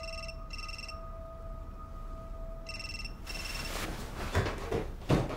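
A mobile phone ringing in double rings: two pairs of short high beeps about three seconds apart. Then a few quick footsteps on wooden floorboards, the last one the loudest, near the end.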